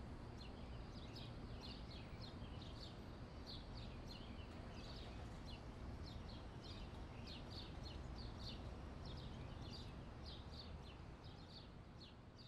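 Faint birdsong: many short, quick chirps, repeating in small clusters, over a low steady background rumble.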